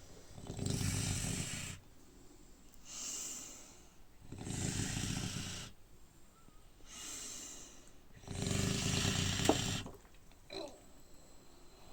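Sleeping pigs snoring: three loud snores about four seconds apart, each followed by a quieter breath, and a short snort near the end.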